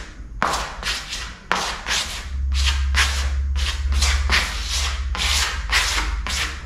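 A trowel scraping burnt-cement (cimento queimado) coating across a wall in quick, random strokes, about two to three a second.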